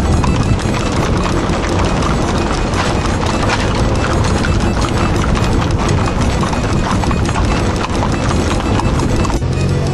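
Many horses' hooves clip-clopping on a paved road as a large group of riders passes close by: a dense, continuous clatter of overlapping hoofbeats. Shortly before the end a low steady hum takes over.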